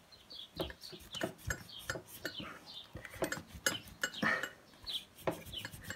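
Metal hand tools and small engine parts clinking and tapping during bench assembly of a two-stroke trimmer engine, as a series of irregular light clicks.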